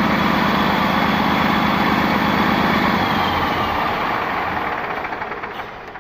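Caterpillar bulldozer's diesel engine running steadily, then winding down and dying away near the end.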